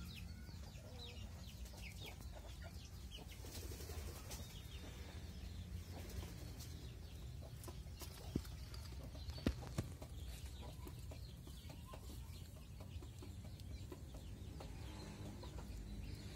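Chickens clucking faintly in the background over a low steady rumble, with three sharp clicks near the middle.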